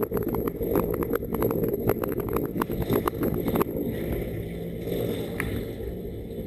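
Motorcycle riding at low speed, its engine and wind noise on the rider's camera microphone, with rapid crackling for the first three and a half seconds that cuts off suddenly. After that the sound is quieter and smoother, fading a little as the bike slows behind traffic.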